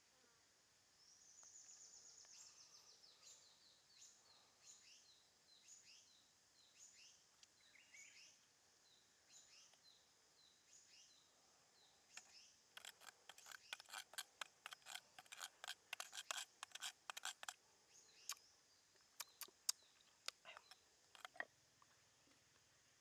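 A bird sings faintly, repeating short high down-slurred notes about one every half second after an opening descending trill. From about halfway, a knife tip clicks and scrapes quickly and irregularly against a small stone mortar as it stirs spices and lime juice, stopping shortly before the end.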